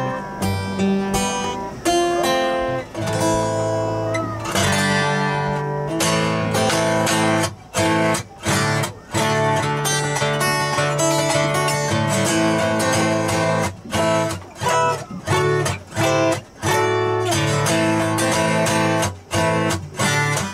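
Two acoustic guitars strummed together, playing a run of chords with brief stops between some of the strums.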